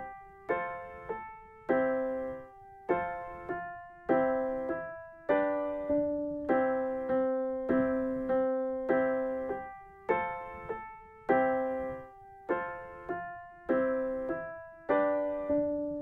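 Instrumental keyboard music: a slow, simple melody of struck piano-like notes, each fading away before the next, about two notes a second.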